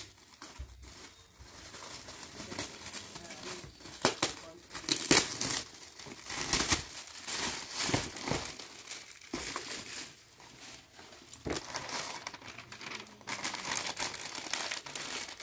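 Gift wrapping and packaging being crumpled and pulled open by hand: irregular crinkling and rustling with a few sharper tearing sounds.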